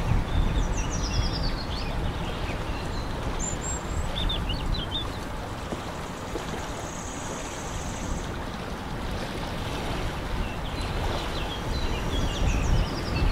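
Outdoor ambience of wind rumbling on the microphone, stronger at the start and end, with small birds chirping now and then and a high held note about seven seconds in.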